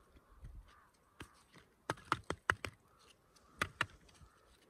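Pieces of dry split firewood knocking and clicking against each other as they are stacked by hand: a single knock about a second in, a quick run of four or five knocks around two seconds in, and two more near the end.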